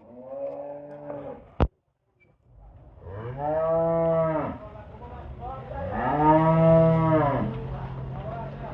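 Holstein Friesian dairy cow mooing: a short moo at the start, then two long, loud moos whose pitch rises and falls. A single sharp click sounds about a second and a half in.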